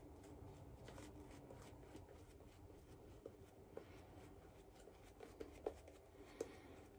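Faint swishing and rubbing of a synthetic shaving brush working lather over the face and neck, with a few light soft ticks.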